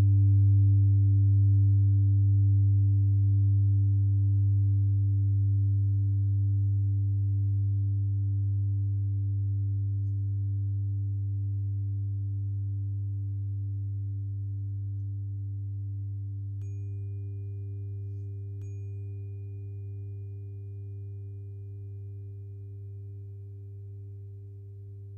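Meditation tones from a singing bowl and binaural-beat mix: a deep, steady ringing tone that slowly fades. About two-thirds of the way through, a 396 Hz tuning fork is struck, its tone ringing out with a faint high clang above it, and it is struck again about two seconds later.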